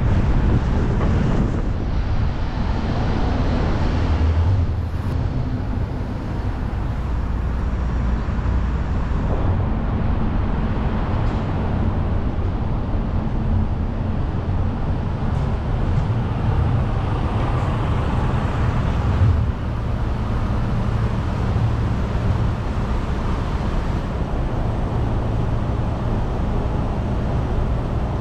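Car driving on city streets: a steady low rumble of engine and tyre noise with surrounding traffic.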